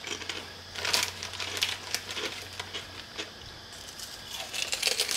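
Plastic chip bag crinkling and crunchy veggie chips being bitten and chewed, in irregular sharp crackles.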